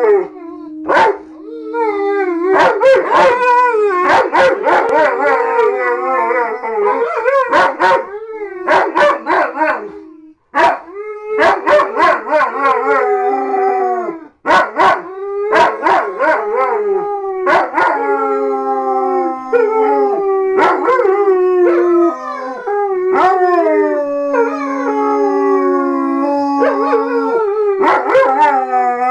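Two German Shepherd Dogs howling together. Their long howls overlap and rise and fall in pitch, with a few short pauses between bouts.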